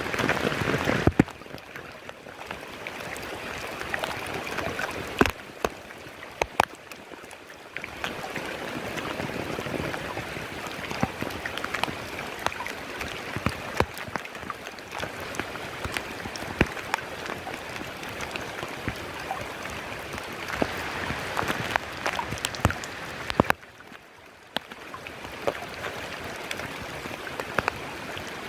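Heavy monsoon rain falling steadily, with many sharp single drops striking close by. The level changes abruptly a few times: louder in the first second, then dipping briefly near the end.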